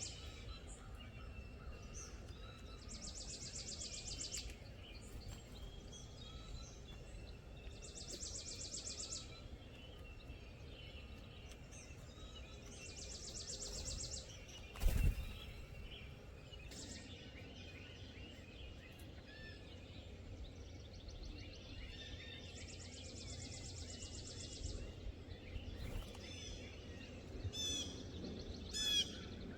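Songbirds singing outdoors: one bird repeats a rapid, high trill of a second or so every few seconds, with other scattered chirps and a quick series of calls near the end, over a steady low rumble. A single sharp knock about halfway through.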